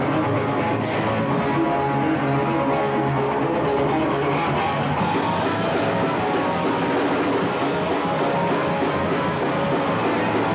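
Live punk rock band playing with electric guitars, bass and drums, recorded on a camcorder from the room. It is loud and steady.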